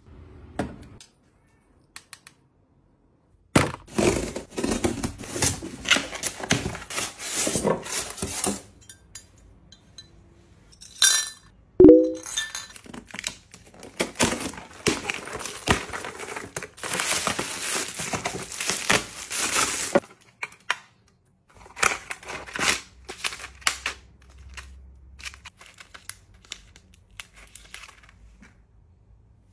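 Close-up packaging and handling sounds: cardboard and plastic crinkling and tearing as box tape is slit with a cutter, with a sharp clink about twelve seconds in.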